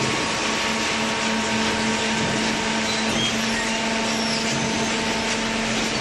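Hydraulic baling press running: a steady machine hum from its motor and hydraulic pump, holding one low pitch over an even rushing noise.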